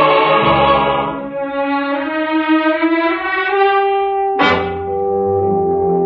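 Orchestral bridge music with brass between two scenes of a radio drama. A full chord fades about a second in, a line climbs in pitch, and a sudden accent comes about four and a half seconds in, followed by a held chord.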